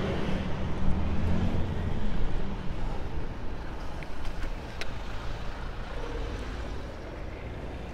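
A motor vehicle passing close and fading away in the first couple of seconds, over the steady rumble of road and wind noise from a moving bicycle.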